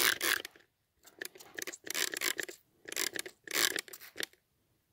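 Spray bottle misting a pet snail with water: a quick, even run of hissing squirts that stops about half a second in, then, after a short pause, looser irregular squirts.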